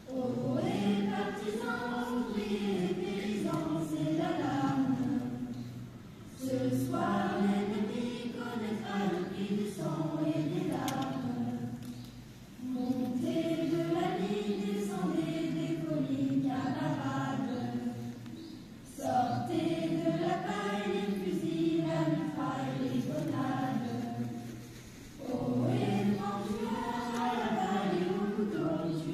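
A choir singing in long phrases of about six seconds each, with short breaks between them.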